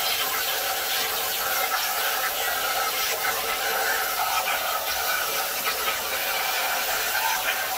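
Jasic Cut 45 air-plasma torch on a CNC table cutting through sheet metal: a steady hiss that holds without a break.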